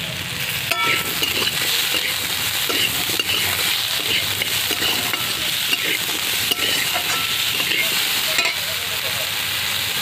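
Potatoes and onions sizzling as they fry in oil in a kadai, being stirred, with the spatula knocking and clinking against the pan several times.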